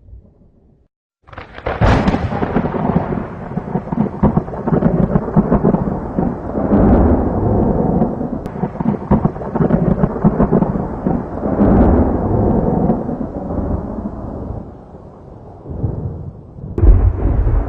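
Thunder: after a second of near silence a loud crack breaks into a long, rolling rumble with crackling, swelling several times over many seconds. It fades briefly, then a second loud peal comes near the end.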